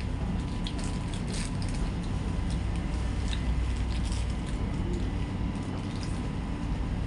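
Small plastic food packet crinkling and crackling in the fingers as it is pulled open, in scattered short clicks over a steady low hum.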